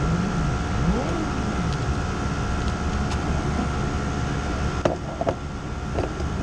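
Steady engine drone with a few rises and falls in pitch in the first second and a half, then several sharp knocks from the cockpit about five and six seconds in.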